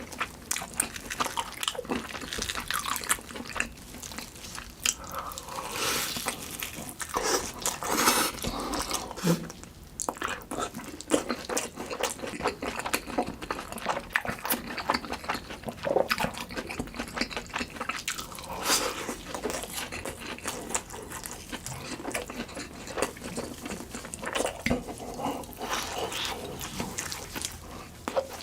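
Close-miked eating: a person biting and chewing food, with a steady run of irregular wet, crackly mouth sounds and crunches.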